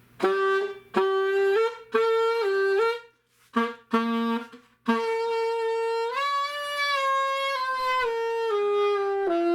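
1925 Holton alto saxophone, freshly repadded, played with the octave key: a few short notes stepping up and down, two brief low notes, then one long note that steps up and slowly back down.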